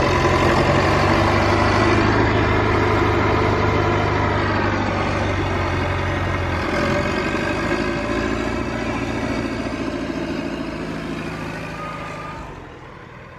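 Motor vehicle engine running steadily, its pitch shifting about halfway through, then fading out over the last few seconds.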